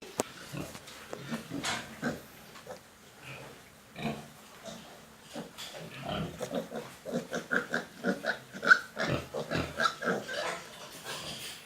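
Pigs grunting and calling in a rapid string of short calls, sparse at first and busier and louder in the second half.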